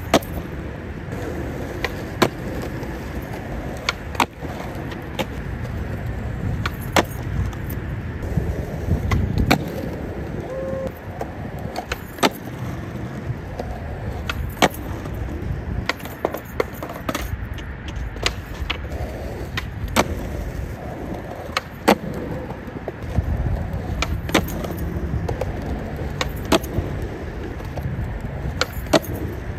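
Skateboard wheels rolling on rough asphalt with a low rumble that rises and falls, broken every couple of seconds by sharp wooden cracks of the tail popping and the board slapping down as the skater does ollie after ollie.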